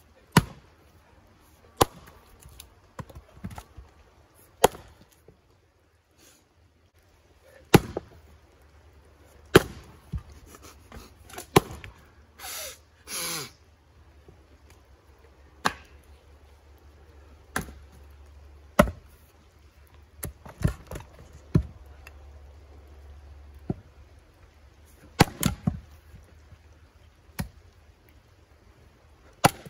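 Axe blows splitting firewood rounds: sharp chops of a steel axe head into wood, coming unevenly about every one to three seconds. Two brief, noisier sounds come near the middle.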